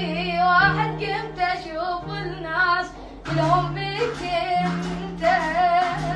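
A boy singing in a high voice, a wavering, ornamented line with no clear words, over held low backing notes that change every second or so.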